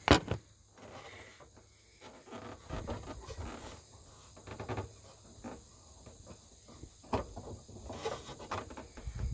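A sharp knock as the recording phone is set down, then faint rubbing, scraping and small clicks of a hand reaching in among the plastic parts behind the headlight to the turn signal bulb socket.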